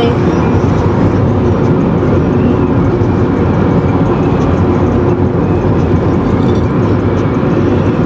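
Steady, loud road and engine noise inside a moving car's cabin.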